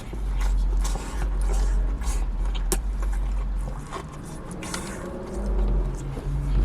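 Chewing a mouthful of crispy fried chicken, with scattered crunches of the breading, over a steady low rumble.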